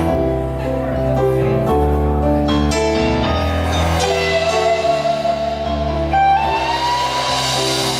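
Live blues band playing the song's instrumental intro, with a steady bass line under held chords. About six seconds in, one held note slides up in pitch.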